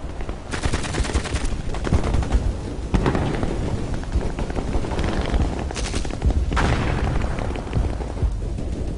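Battle sounds: machine-gun and rifle fire rattling in rapid bursts with explosion booms, over a continuous low rumble. The heaviest bursts come about half a second in, about three seconds in, and around six to seven seconds.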